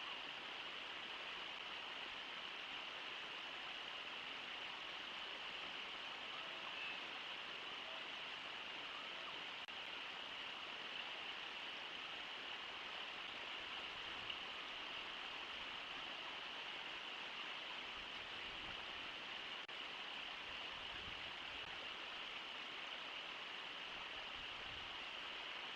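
Steady rushing of Brooks Falls, the waterfall and river water pouring over the ledge, an even hiss with no change in level.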